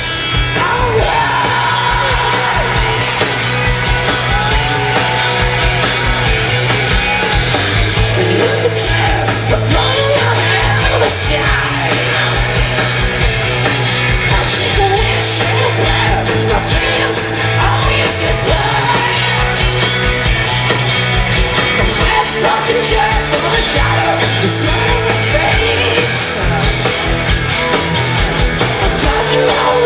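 Live hard rock band playing loud through the PA, recorded from the crowd: electric guitars over a steady bass line and drums with frequent cymbal hits.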